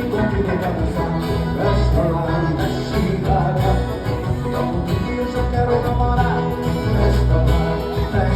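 Forró song playing, an instrumental passage with no words sung.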